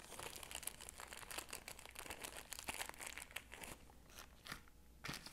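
Faint crinkling of a small plastic packet being handled and opened to take out a piece of solder wick: dense small crackles for about four seconds, then a few scattered clicks near the end.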